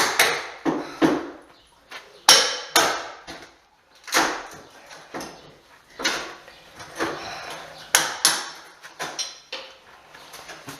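Hammer striking carpet tack strip on a wood floor: a dozen or so sharp, irregularly spaced blows as the strip is knocked loose.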